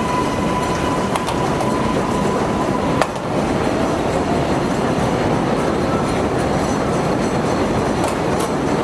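Elevated subway train running on the steel structure over the street, a loud steady rumble. A thin steady squeal in the first seconds ends with a sharp click about three seconds in.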